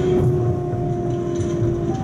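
South Shore Line electric train running on the rails: a steady electric drive whine over a constant low rumble of wheels on track. The whine shifts in pitch near the end.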